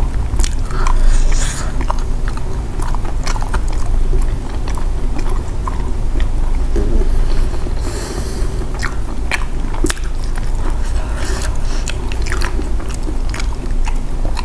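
Close-miked chewing and biting of fried cassava and sweet potato balls: irregular wet mouth clicks and smacks throughout.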